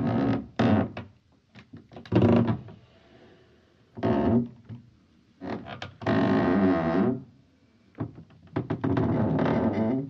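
Ship's hull creaking: a string of irregular creaks and groans with pauses between, some short and some drawn out for a second or more, sliding in pitch.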